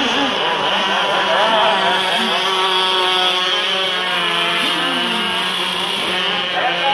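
Several radio-controlled model powerboats racing, their small high-revving engines whining together, with pitches sliding up and down as the boats turn and pass.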